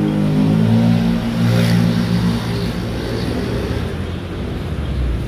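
A motor vehicle's engine running loud and close by, its steady hum giving way after about three seconds to a rumble of road noise.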